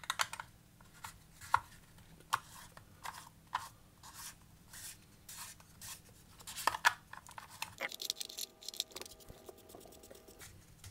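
Plastic housing parts of a hot air gun handle being fitted back together by hand: irregular small clicks, taps and scrapes of hard plastic against plastic and metal.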